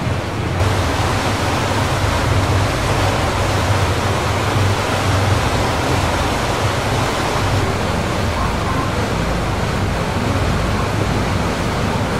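A boat running on a lake: a steady low engine drone under the loud rush of churning water from its wake.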